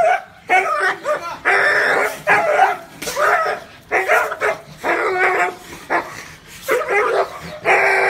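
A dog barking repeatedly, about a dozen barks at an uneven pace of one or two a second, some of them drawn out.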